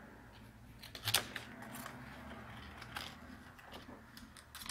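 Gloved hands handling a wrapped CR2032 CMOS coin-cell battery on its wire lead with a small metal tool, making scattered small clicks and crackles, the sharpest about a second in.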